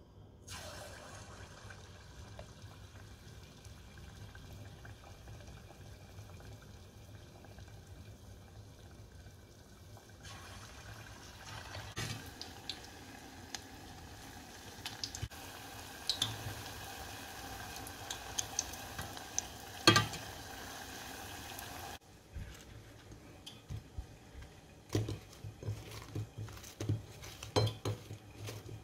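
Hot oil sizzling steadily as balls of fritter batter deep-fry in a stainless saucepan, with several metal clinks of a wire skimmer against the pot, one of them loud about two-thirds of the way through. The sizzle cuts off suddenly, and soft taps and rustles follow near the end as fried fritters are rolled in powdered sugar on a plate.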